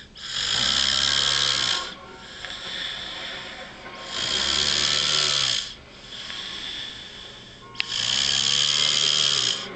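A sleeping man snoring: three loud snores, each about a second and a half long, coming about every four seconds.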